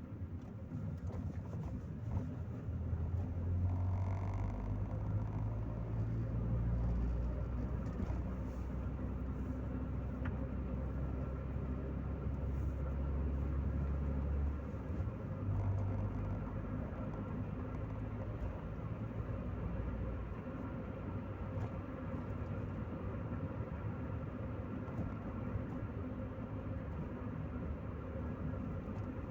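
Chevrolet Corsa Maxx driving, heard from inside the cabin: steady engine and road noise. A heavier low rumble fills the first two-thirds and eases off after about twenty seconds.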